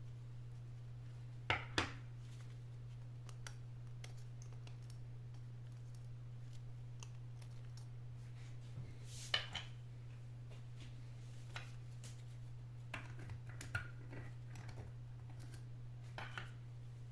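Scattered sharp clicks and taps of small hard parts being handled, two close together near the start and the loudest one about halfway, over a steady low hum.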